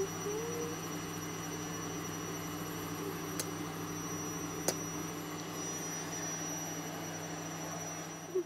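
Steady electrical hum with a faint high whine, broken by two faint clicks a little over a second apart near the middle.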